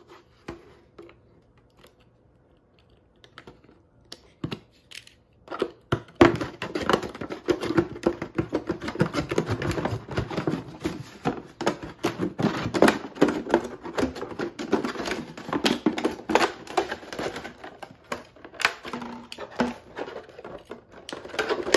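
Utility knife cutting through a plastic gallon milk jug: a few scattered clicks at first, then from about six seconds in a dense run of irregular clicks and crackles as the blade saws through the thin plastic and the jug crinkles in the hands.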